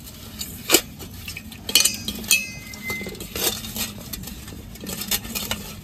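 Peeled hard-boiled eggs being turned by hand in a stainless steel bowl, clinking and knocking against the steel every second or so, with a short faint ring near the middle.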